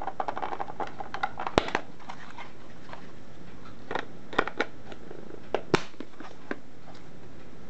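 Handling noise from a handheld digital multimeter's plastic case being turned over in the hands. A cluster of small clicks and rubbing comes in the first two seconds, then a few sharper clicks around four and again around six seconds.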